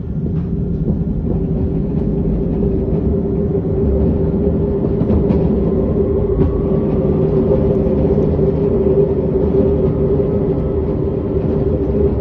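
Tram motor noise: a steady hum over a heavy low rumble, with a faint rising whine about halfway through.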